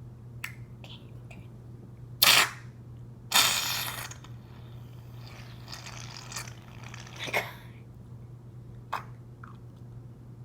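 Aerosol shaving cream can spraying foam: two short loud hisses about two and three and a half seconds in, then softer sputtering hiss, with a few small clicks.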